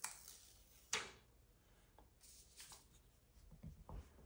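Faint handling sounds as the protective film is peeled off a phone screen protector: two short scratchy rasps, one near the start and one about a second in, then light scuffs of fingers and a plastic squeegee on the glass.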